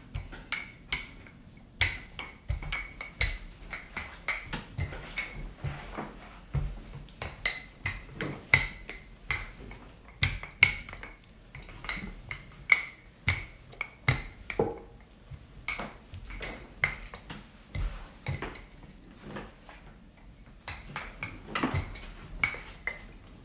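Wooden rolling pin rolling out pie dough on a marble slab: an irregular run of knocks and clicks, sometimes several a second, some with a short ring.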